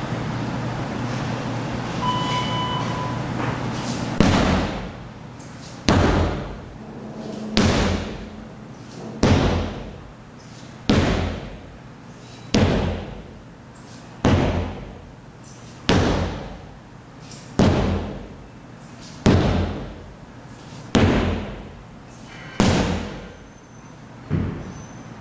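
Sledgehammer strikes, one heavy blow about every one and a half to two seconds, about thirteen in a row, each ringing out briefly. They start a few seconds in, after a stretch of steady background noise.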